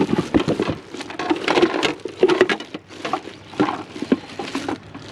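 Irregular knocks, clatter and rustling of hard objects being picked up and handled.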